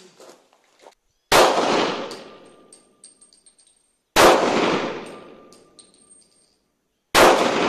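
Three pistol shots from an Imbel MD7 .40 S&W pistol, fired about three seconds apart. Each shot is a sharp crack followed by a ringing echo that dies away over about a second and a half.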